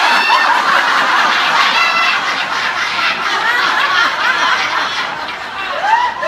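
Many people laughing together in a group laughter yoga exercise, dozens of voices overlapping in loud, deliberate laughter, loudest at the start.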